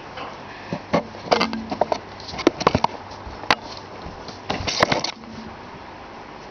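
Irregular knocks, clicks and rustles close to the microphone as a guinea pig moves right against the camera and cardboard. They come in clusters in the first five seconds, the densest just before five seconds in, then stop.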